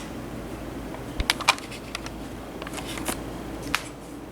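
Four light, sharp clicks and knocks over a faint steady hum.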